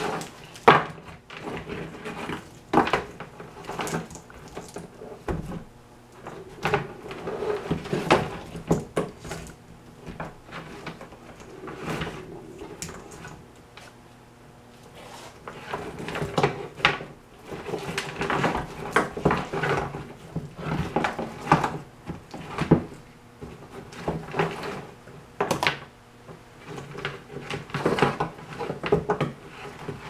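Handling noise of a wiring harness being worked on a wooden workbench: irregular rustling of wires with frequent sharp clicks and knocks as wires, connectors and the glue bottle are moved and set down.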